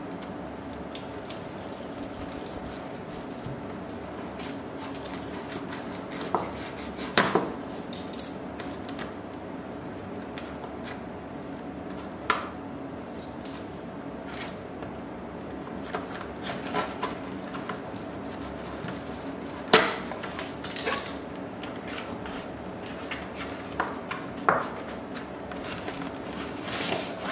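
Kitchen knife cutting and scraping through a cardboard box, with scattered sharp clicks and short scrapes, a few of them much louder than the rest. A steady hum runs underneath.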